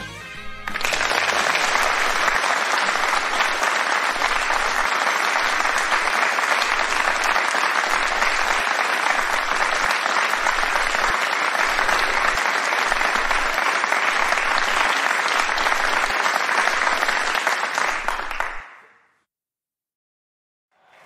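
Audience applause after a song, a dense, steady clapping that begins within the first second, fades and stops near the end.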